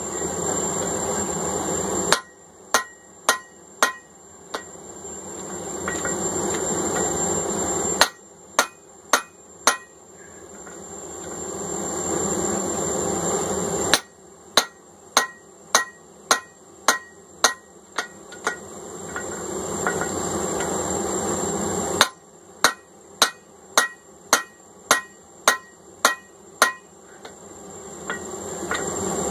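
Hand hammer striking a handled eye punch driven into hot steel, punching a hammer eye, in runs of sharp blows about two a second. Between the runs a steady rushing noise swells over several seconds.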